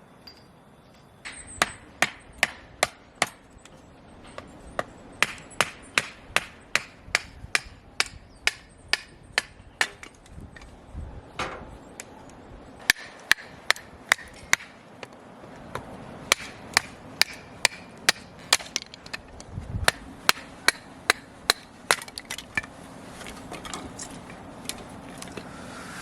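Repeated sharp knocks from something being struck hard, about two to three a second, in runs of several strikes with short pauses between. It sounds like a hammer or hatchet working at camp.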